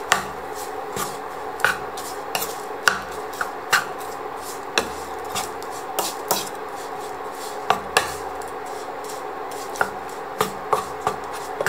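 Wooden spatula scraping and tapping on a non-stick frying pan as cooked rice is stir-fried, with irregular sharp knocks, about one or two a second.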